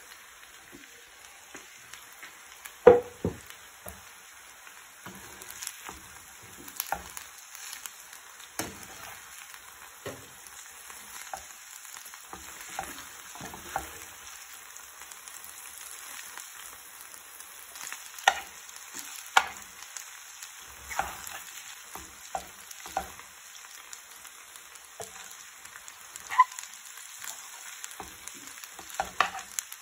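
A metal spoon stirring fusilli pasta through a frying pan of fried potato and tuna, clicking and scraping against the pan over a faint steady sizzle. A handful of sharper knocks stand out from the irregular stirring.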